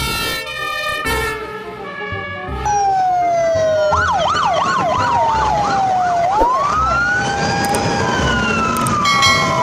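Background music, then, a few seconds in, fire engine sirens take over: a wail falling in pitch overlapped by a fast up-and-down yelp, then a wail that rises and slowly falls.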